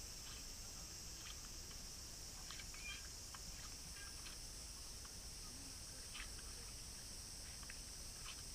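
Capybara chewing watermelon: scattered short, irregular crunches and clicks, over a steady high-pitched hiss.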